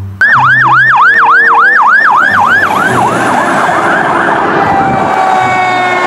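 Fire engine siren in a fast yelp, sweeping about four times a second. After a few seconds it blurs into a steadier wail with a tone that slowly falls near the end.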